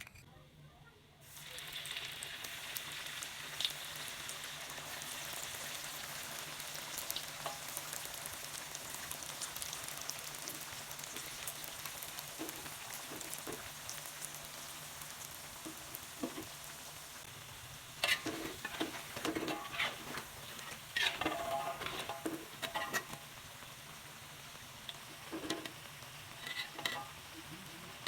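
Cireng (tapioca-dough fritters) frying in hot oil: a steady sizzle that starts about a second in. In the second half, a cooking utensil knocks and scrapes against the pan in several short clusters as the pieces are stirred and turned.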